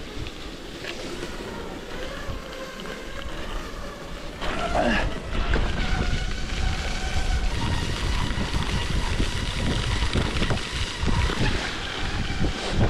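Wind rumbling on the microphone, getting louder about four seconds in, with a thin, faint steady whine above it.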